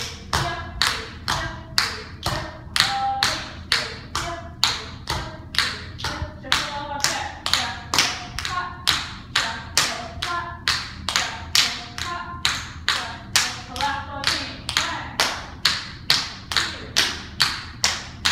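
Tap shoes striking a hard studio floor in a steady, even rhythm of about two to three taps a second.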